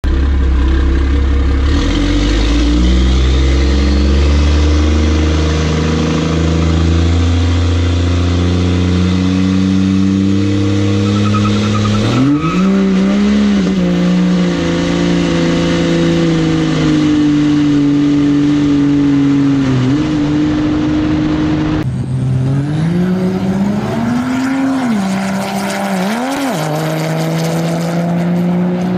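Cummins diesel pickup truck engine under hard acceleration, its note climbing and dropping back in steps. About two-thirds of the way in the sound cuts to another run, where the engine revs up and falls back twice.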